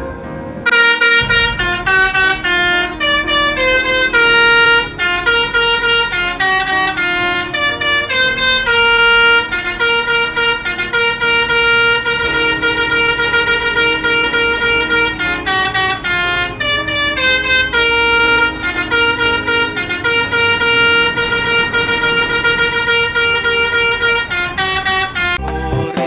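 Basuri 'telolet' multi-tone air horn on an intercity bus playing a long melody of held, stepping notes, over the low rumble of traffic. It starts about a second in and stops just before the end.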